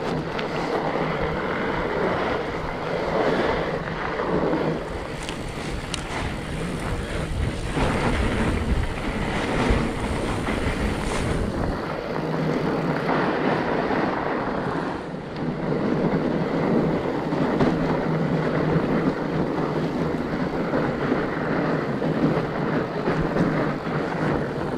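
A fat bike being ridden along a trail: a steady rush of tyre and riding noise mixed with wind on the microphone, and a few knocks from bumps in the middle stretch.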